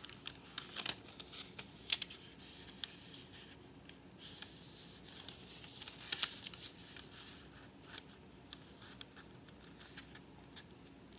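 A sheet of paper being folded and creased by hand on a table. Soft rustling and scraping with a few sharp little taps and clicks.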